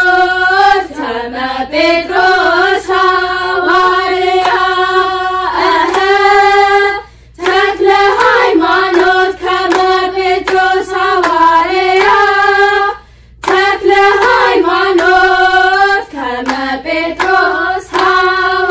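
A youth choir of girls singing an Ethiopian Orthodox mezmur (hymn) together in unison in phrases. There are short breath pauses about seven and thirteen seconds in.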